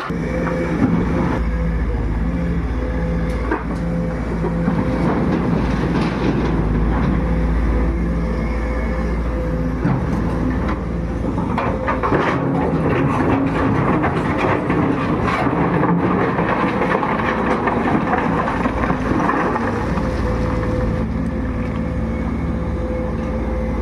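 Heavy excavator's diesel engine running under load, with a steady whine over its low rumble and scattered knocks as it works.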